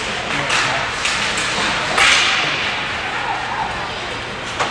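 Ice hockey play heard from the stands: sharp cracks of sticks and puck, with the loudest hit about two seconds in echoing through the rink.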